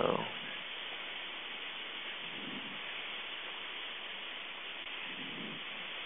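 Steady hiss of a Cessna 152's cabin noise, engine and airflow, with the engine at reduced power on final approach. A brief louder sound with a falling tone comes at the very start.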